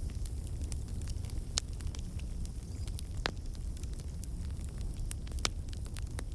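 Wood fire burning in a fireplace, a steady low rumble of flames with irregular sharp crackles and pops, a couple of louder pops about three and five seconds in.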